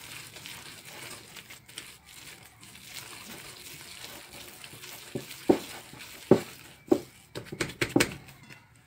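A hand squeezing and mixing soft flour-and-egg dough with melted butter in a glass bowl: a low, squishing rub, then from about five seconds in a run of sharp wet squelches and knocks, a few of them loud.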